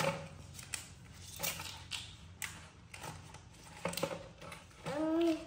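Paper banknotes crinkling and plastic piggy banks being handled, a run of small rustles, clicks and scrapes as notes are pushed into the coin slots. Near the end comes one short voice sound.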